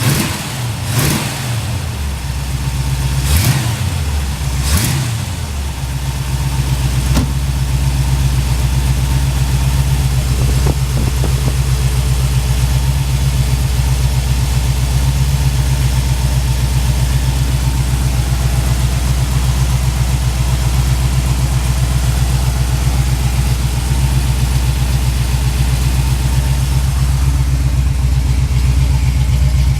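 A 383 stroker small-block Chevy V8 in a 1971 Nova is revved in three quick blips during the first five seconds or so. It then settles into a steady idle with an even pulse.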